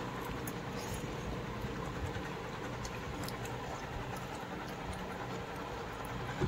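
Steady low background rumble with a few faint, brief clicks.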